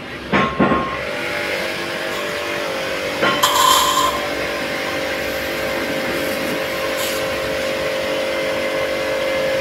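High-pressure jet cleaner running with its trigger gun open: the pump motor holds a steady hum while the water jet hisses onto steel plates. There are a couple of sharp knocks near the start and a brief louder hiss about three and a half seconds in.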